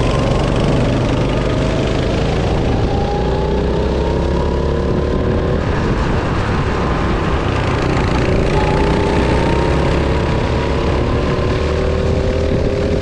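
Go-kart engine running under load, its pitch climbing slowly as the kart accelerates, easing off about five seconds in, then climbing again. A steady low rumble runs beneath it.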